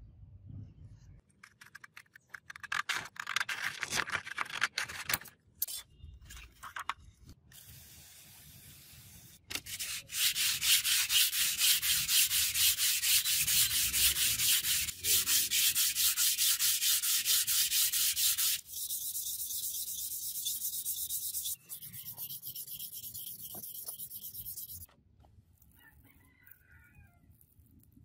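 Hand sanding a wet steel block with wet/dry sandpaper on a sanding block: fast back-and-forth scraping strokes. They are loudest through the middle, continue more quietly in two sections that start and stop abruptly, and end a few seconds before the close.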